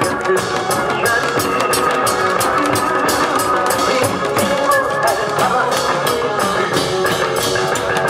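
Music with a fast, steady drum beat under a held melody line; Korean barrel drums (buk) are beaten in time with it.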